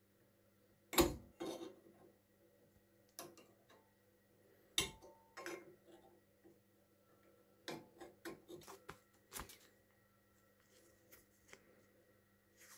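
Sharp metal clicks and taps of a steel caliper and scriber against the breast drill's metal chest plate held in a vise, as it is measured and scribed for marking out. The loudest clicks come about a second in and near five seconds, with a quick run of small ticks later on, over a faint steady hum.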